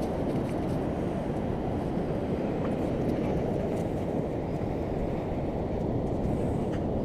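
Wind buffeting the camera's microphone: a steady, dense low rumble with little above it.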